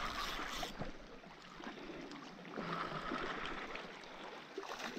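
Sea water washing and gurgling among shoreline rocks, surging twice: at the start and again about two and a half seconds in.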